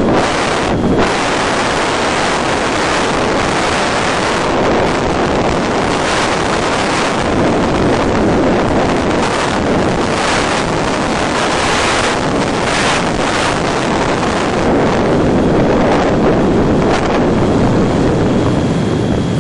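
Steady wind rush over the onboard microphone of an FPV model plane gliding with its motor throttled back: a dense, even noise with no motor tone heard.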